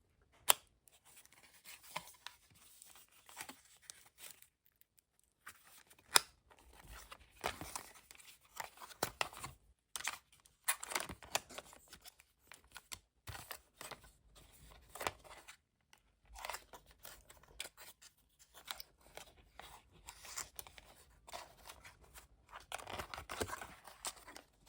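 Packaging being opened by hand: irregular tearing, rustling and scraping, with scattered sharp clicks, the loudest about half a second in and about six seconds in.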